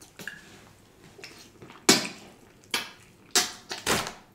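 A few sharp crackles and taps as fried chicken is handled against a foam takeout container close to the microphone, most of them in the second half.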